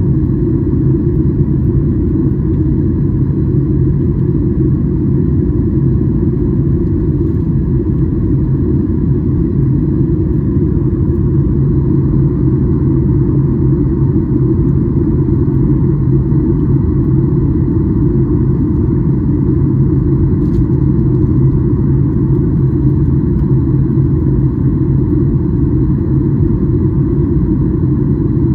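Boeing 737-800 cabin noise in flight: a steady low rumble of the engines and the airflow, with a constant low hum.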